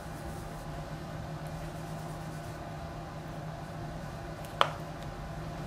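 Steady low hum of room tone, with a single sharp click about four and a half seconds in.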